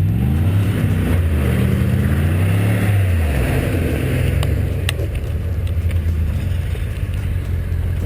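Truck engine revving under load while towing a stuck truck out of snow. It rises in pitch twice over the first three seconds, drops back about three and a half seconds in, then runs steadily at low revs, with a couple of short sharp clicks soon after.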